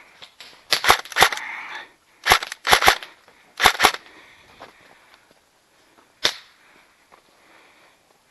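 Airsoft guns firing single shots: sharp cracks, several coming in quick pairs over the first four seconds, then one more about six seconds in.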